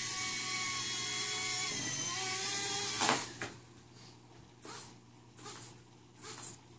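Blade mSR X micro RC helicopter's electric motors and rotors whining steadily at a high pitch. About three seconds in there is a sharp knock and the whine cuts off as the helicopter drops to the floor. A few faint short sounds follow.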